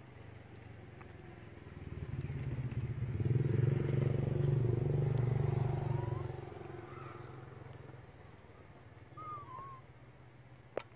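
A motorcycle engine passes by, growing louder about two seconds in and fading away over the next few seconds. A few short high chirps follow, and a single sharp click comes just before the end.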